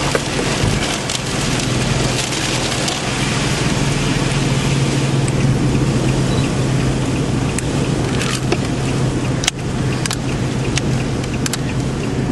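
Strong wind rushing over the microphone close to a large tornado, with a steady low hum beneath it. Scattered sharp clicks and cracks run through it; the loudest comes about nine and a half seconds in.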